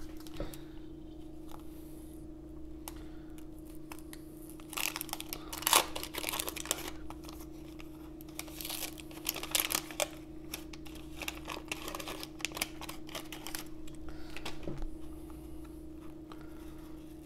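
Wax-paper wrapper of a 1990 Donruss baseball card pack being torn open and crinkled, then the stack of cards sliding out and handled. The crinkling is loudest in a few bursts around the middle.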